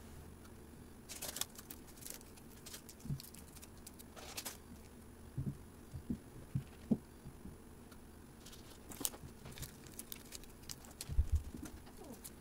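Faint, scattered rustles and soft taps of hands wrapping ham and eggplant slices in nori sheets and setting the rolls down on a plastic cutting board, with a soft low thump near the end.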